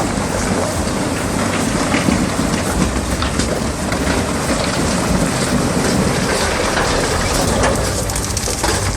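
Heavy logging truck driving on a rough forest track: a low engine rumble under a steady rattling, crackling noise.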